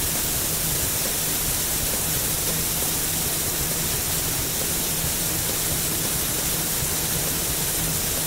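Cartoon sound effect of a jet of liquid spraying from a tanker truck's pipe: a steady, loud rushing hiss that fades in just before and out just after, with a low steady hum underneath.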